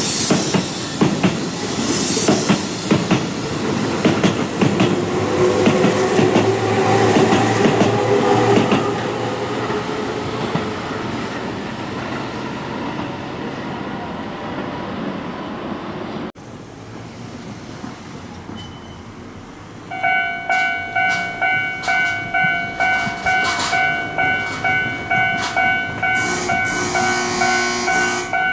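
Keihan 6000 series electric train pulling away and running past, with wheel clatter and a faint rising motor whine, fading as it leaves. After a cut, an electronic warning bell rings in steady strokes, about one and a half a second, while a train approaches.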